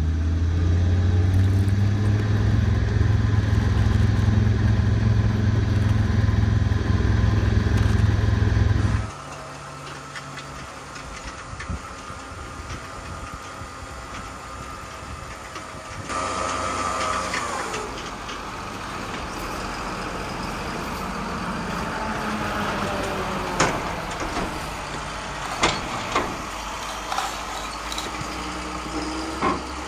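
Heavy truck engine sounds, edited together: a loud low engine rumble that cuts off abruptly about nine seconds in, then a quieter running engine with a falling whine partway through and a few sharp clicks near the end.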